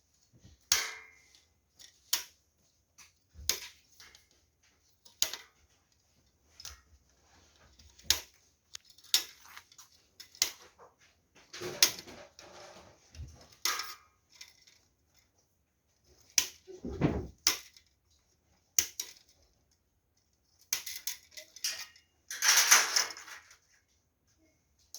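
Irregular clicks, taps and clinks of small hard parts being handled, with a few longer scraping, rustling stretches in the middle and near the end.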